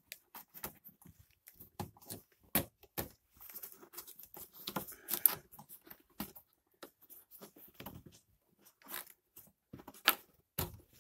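Hands handling plastic parts at the cabin air intake: irregular clicks, taps and rustles, with a sharper click about five seconds in and another about ten seconds in.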